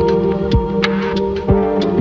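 Background music: held electronic chords with a deep, thudding beat and sharp ticks over them.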